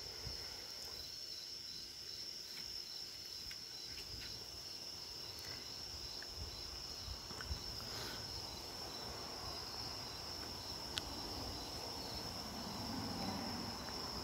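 Crickets trilling steadily: a continuous high-pitched sound with a faint pulsing, and a couple of small clicks partway through.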